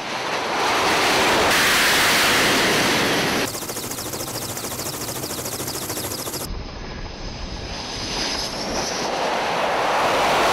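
Carrier-based fighter jet engines running at takeoff power, a loud rushing jet noise that changes abruptly several times as the shots change. It carries a fast crackling texture through the middle and swells again near the end.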